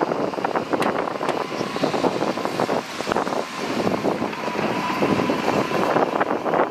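Heavy earthmoving machinery at work: engine running under constant rattling and clanking, with a thin steady whine coming in about halfway through.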